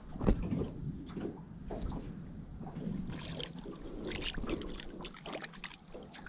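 Water splashing and sloshing as a blue catfish, held at the surface by a lip grip over the side of an aluminium jon boat, thrashes during its release. A single sharp thump comes just after the start, with irregular splashes throughout that grow busier in the second half.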